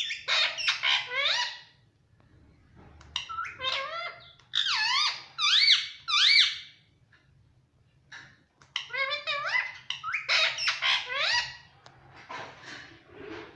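Pet parrot, a ringneck parakeet, chattering in bursts of high squeaky calls that slide up and down in pitch, with short pauses between the bursts.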